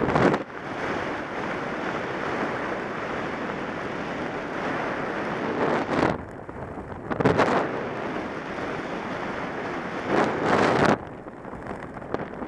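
Wind rushing over a skydiver's camera microphone as a steady rumbling rush, buffeting harder in gusts a few times.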